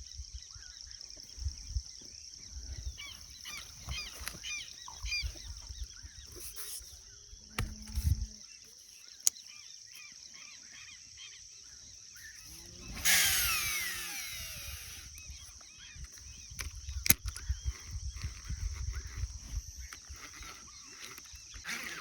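Evening chorus of insects, a steady high buzz, under many short chirping animal calls. About thirteen seconds in, a louder whirring falls in pitch over about a second.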